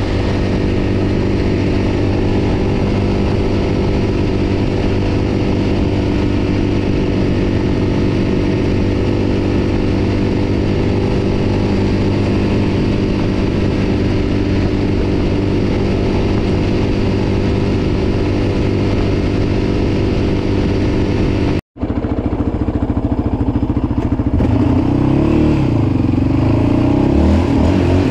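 Yamaha Raptor 700 ATV's single-cylinder four-stroke engine running at a steady cruising speed, heard from the rider's seat. A brief gap in the sound comes about three-quarters of the way through. Near the end the engine pitch rises and falls as the throttle is worked.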